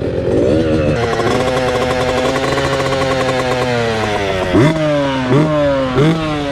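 Dirt bike engine revving. A held rev slowly sinks in pitch, then from about halfway through the throttle is blipped again and again, each blip a quick rise and fall, about once every 0.7 seconds.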